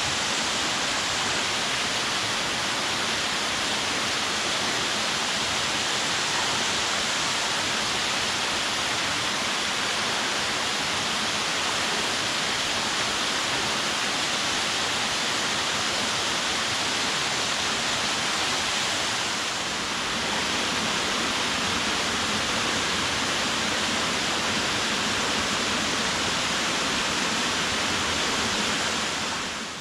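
Waterfall rushing steadily: a dense, even wash of falling water.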